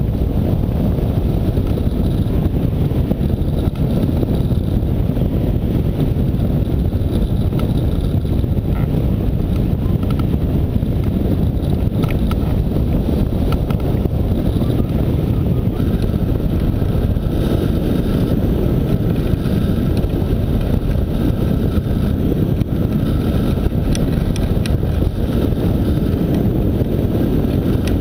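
Wind rush from the airflow of flight buffeting the microphone of a camera mounted on a hang glider: a steady low rumble with no let-up.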